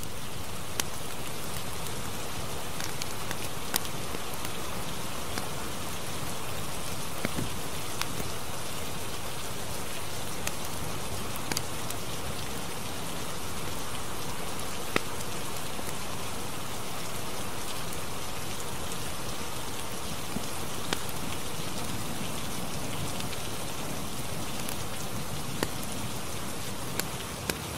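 Steady rain: an even hiss of rainfall with scattered louder single drop ticks.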